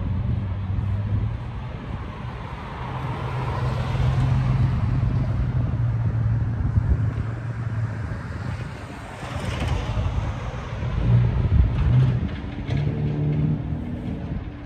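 Car engines running with a low, steady rumble. About eleven seconds in the note shifts, and near the end a higher engine note comes in.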